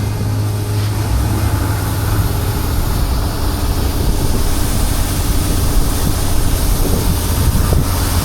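Combine harvester running steadily through a barley field, a loud, even engine and machinery drone.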